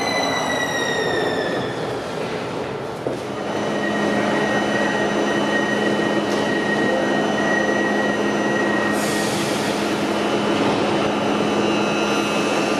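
Škoda Varsovia metro train: its traction-motor whine falls in pitch as it brakes to a stop. After a click about three seconds in, the train stands at the platform with a steady hum and a high whistling tone, broken by a short hiss about nine seconds in. Near the end a new whine starts as it sets off.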